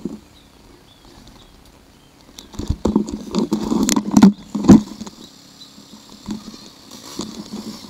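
Camera handling noise: rubbing and a run of sharp knocks on the camera body as it is turned around in the hand, loudest a little past the middle, with a few quieter taps near the end.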